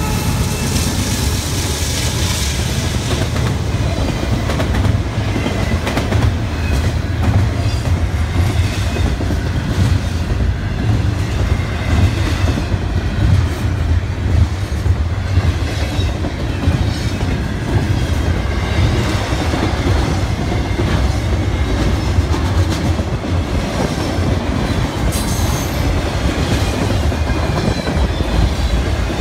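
BNSF intermodal freight train rolling past: a steady, loud rumble of cars with a running clickety-clack of wheels over the rail joints.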